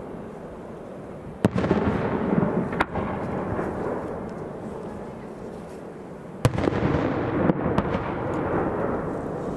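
Aerial firework shells bursting: two loud sharp bangs, about a second and a half in and again near six and a half seconds, each followed by a long rolling rumble with a few lighter pops.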